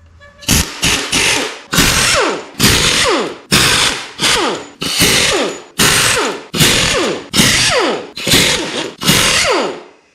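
A cordless power tool spinning out the cylinder head bolts of a 6.0L LS V8, in a rapid run of about twenty short trigger bursts, each winding down in pitch as it is released.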